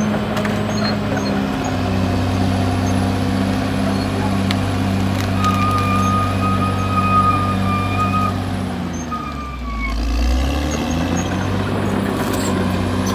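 Caterpillar D6R XL bulldozer's diesel engine running steadily, with a high squealing tone for about three seconds in the middle. About two-thirds of the way through, the engine pitch dips briefly and then comes back up.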